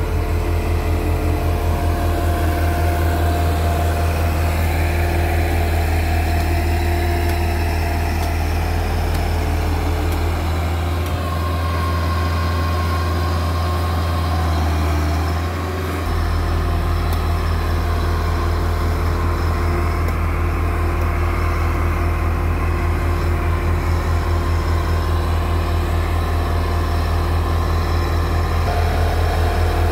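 Diesel engine of a Müller single-drum road roller running steadily close by, a loud low hum. Its deepest rumble drops away for about five seconds midway, then returns.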